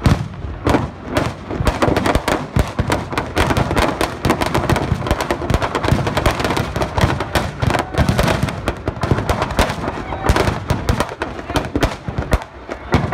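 Firecrackers packed inside a burning Ravana effigy going off in a rapid, unbroken string of cracks and bangs as the effigy catches fire.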